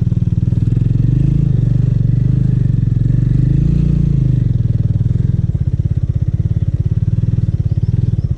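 Motorbike engine running at low speed, its revs rising a little about a second in and again around three to four seconds, then easing off.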